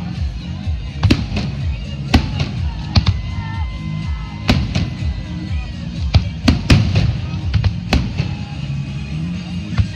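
Fireworks display: about a dozen firework bangs and booms going off one after another, with music playing behind them.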